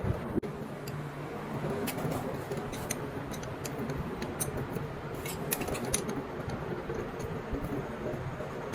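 Scattered light clicks and clinks of metal tools and small engine parts being handled during motorcycle engine work, over a steady background noise.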